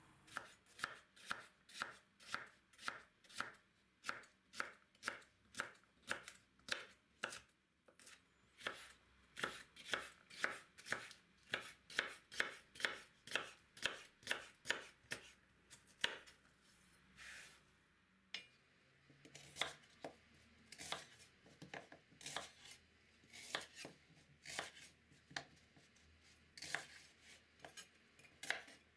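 Large kitchen knife chopping sweet red peppers on a wooden cutting board: crisp, even strikes about two a second, turning looser and more irregular about two-thirds of the way through.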